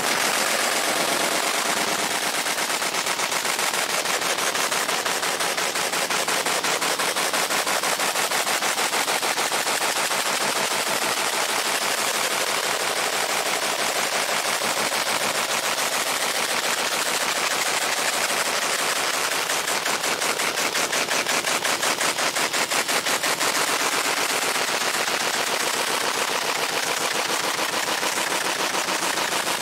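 Fiber laser engraving a steel sledgehammer head: a fast, steady crackling of rapid pulses as the beam scans across the metal.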